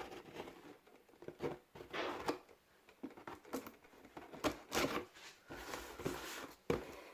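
Cardboard box being opened by hand: irregular scrapes, rips and rustles of tape and cardboard, with small knocks.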